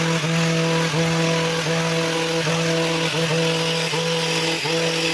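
Petrol hedge trimmer running at high speed, its steady engine note dipping briefly about once a second as the blades bite into the shrub.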